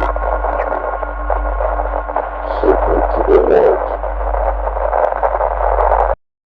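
Harsh broadcast interference: loud static over a heavy low hum and a few steady tones, with garbled bursts in the middle, breaking into the news audio. It cuts off abruptly into silence about six seconds in.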